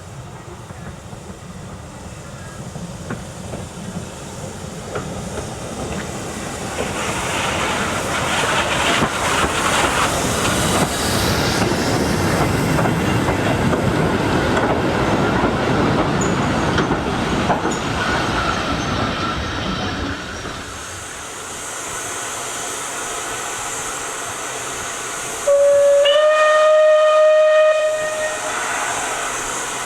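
A steam train passes: the noise builds, is loudest for about a dozen seconds, then eases off. Near the end a steam locomotive's whistle gives one blast of about two and a half seconds, rising slightly in pitch as it opens. The whistle is the loudest sound.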